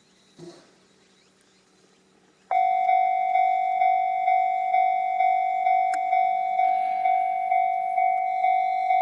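Level crossing warning bell starts suddenly about two and a half seconds in, then rings a steady repeated ding about twice a second, the signal that a train is approaching.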